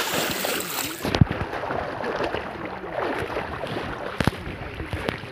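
Water splashing and sloshing as a boy swims through a river, with wind rumbling on the microphone. Two sharp knocks, about a second in and just past four seconds.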